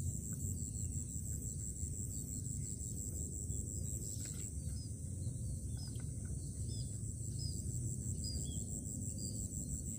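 Rural waterside ambience: a steady high insect trill over a low rumble, joined from about halfway by a run of short high chirps about twice a second.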